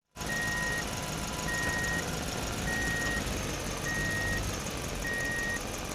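Truck reversing alarm beeping: a single steady high tone, five evenly spaced beeps of about half a second each, over a steady background hum.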